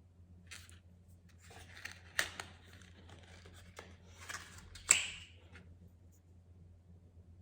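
Rustling and crinkling as paper or packaging is handled, with two sharp snaps, the louder one about five seconds in, over a steady low hum.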